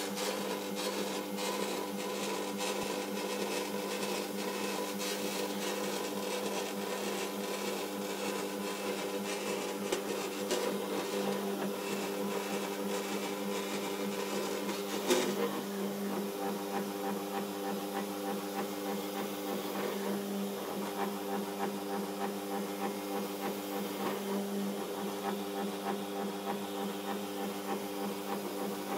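Electric boilie-rolling machine's motor running with a steady hum, with a single sharp knock about halfway through.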